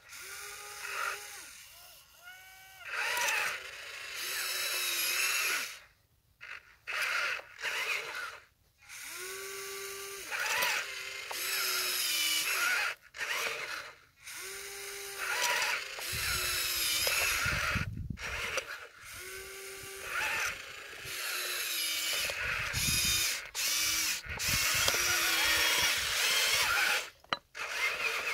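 Huina 1583 RC wheel loader's small electric gear motors whining in repeated short runs that start and stop every few seconds, the pitch sliding up as each run starts and down as it stops. Two stretches of low rumble come in about midway and again a little later.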